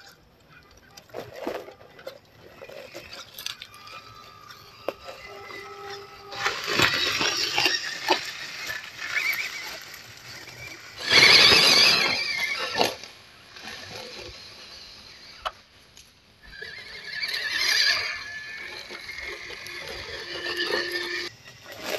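Small RC crawler trucks' electric motors and gearboxes whining in spurts as the trucks drive over dirt and dry leaves, with the rustle and crunch of the tyres. The loudest spurt lasts about two seconds near the middle, and there is another toward the end.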